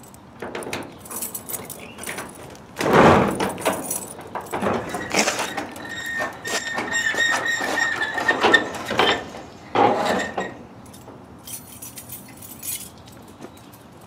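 Keys and a door latch clicking, then a metal-sided shed door pulled open, with a loud bang about three seconds in, a few seconds of rattling and a high squeak as it moves, and another bang near ten seconds.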